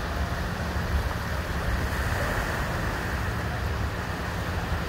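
Steady wind and surf noise at the shore: wind rumbling on the microphone over the wash of small waves.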